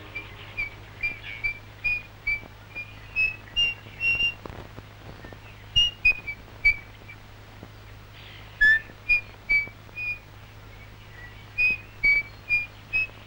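A person whistling a tune in short, separate notes that step up and down in pitch, with a few pauses between phrases. A faint steady low hum runs underneath.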